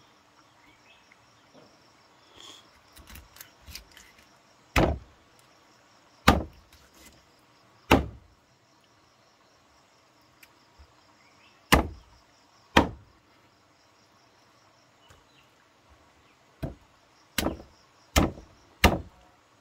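A large knife chopping through fish on a heavy chopping block: about ten sharp chops, a few spaced seconds apart at first, then five in quick succession near the end. Insects chirr faintly throughout.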